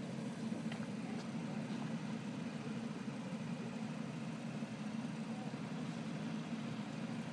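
A field of racing karts idling together on the starting grid, a steady low engine drone as they wait for the start.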